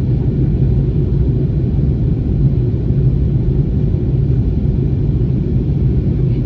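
Steady low rumble of an Airbus A321 heard inside the passenger cabin: engine and airflow noise running evenly with no changes.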